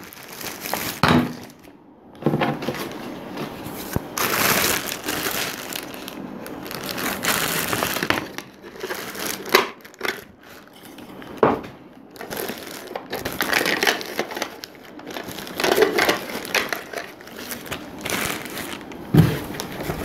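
Clear plastic bag wrapped around a handheld vacuum cleaner crinkling and rustling as it is handled, in irregular bursts with a few sharp clicks.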